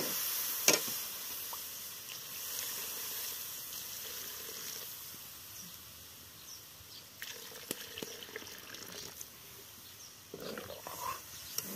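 Steady hiss of steam from a pot of pulao cooking over an open fire, with a few sharp clicks. Near the end, stirring and scraping in the pot begins.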